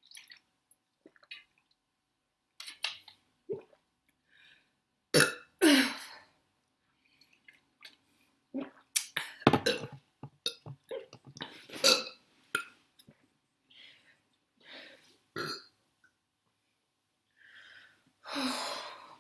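A woman burping again and again after drinking a lot of cola: a series of separate burps of varying length and loudness, the loudest about five to six seconds in and around ten to twelve seconds, with short clicks between them.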